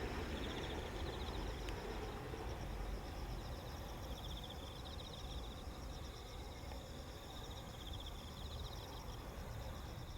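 Insects chirping in rapid pulsed trills at two pitches, over a low rumble that fades away in the first few seconds.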